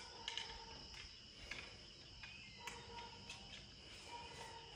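Faint steady chirring of crickets, with a few light clicks as a bolt is set on a crossbow's rail.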